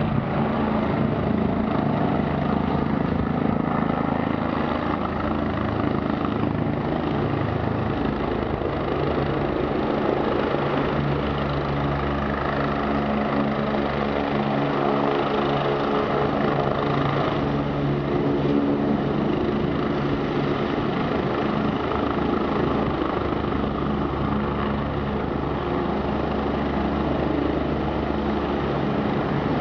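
An Agusta Westland AW109 twin-turbine helicopter running steadily, with a continuous rotor and turbine drone and several steady low hums underneath.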